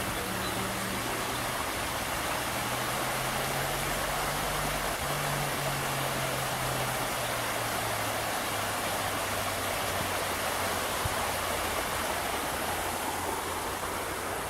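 Flowing stream water rushing steadily, a constant even wash of sound.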